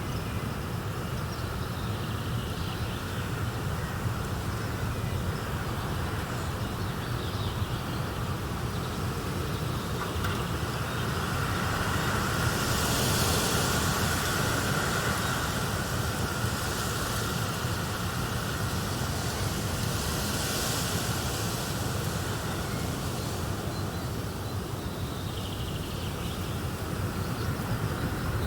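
Wind blowing with a steady low rumble, and leaves rustling in gusts that swell twice around the middle.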